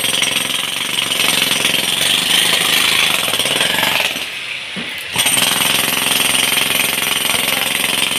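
Electric demolition hammer chiselling into a concrete road surface, a loud, fast, continuous hammering that eases off for about a second a little after four seconds in, then resumes at full force.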